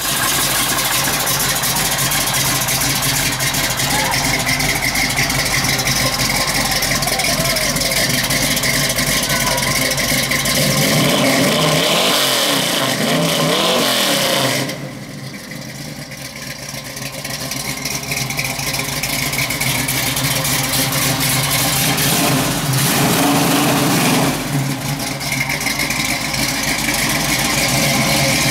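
1969 Ford Mustang's 351 Cleveland V8 running through a Flowmaster exhaust, idling and blipped several times, its pitch rising and falling in the middle. The level drops suddenly about halfway through, then climbs back.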